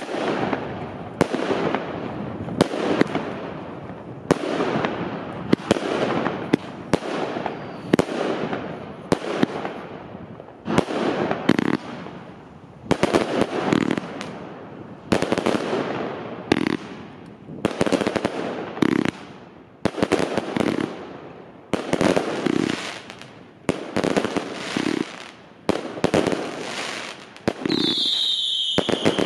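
A Magnum Vuurwerk Santa Domingo 200-shot firework cake firing shot after shot, about one a second and sometimes in quick pairs. Each shot is a sharp bang followed by a short trailing burst. Near the end a high falling whistle sounds.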